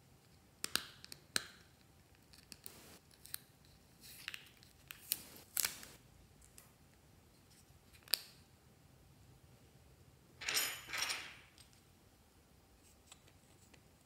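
Small plastic Almay eyeshadow compact handled in the fingers: a scattering of light clicks and taps as the case is turned and pried open. A longer scratchy rustle follows a little over ten seconds in.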